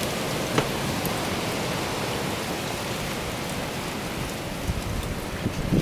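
Steady rushing hiss of blizzard wind, with a few low thumps near the end.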